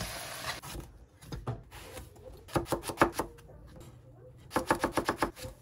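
Three quick runs of light clicks or knocks, the last the longest at several a second.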